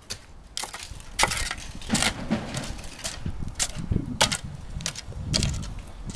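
A series of irregular sharp knocks and cracks, about a dozen over several seconds, with duller thuds between them.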